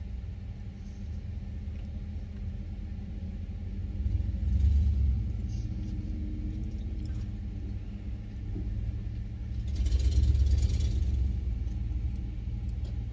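Pickup truck engine idling with a steady low rumble, heard from inside the cab. The rumble swells louder twice, about four seconds in and again about ten seconds in.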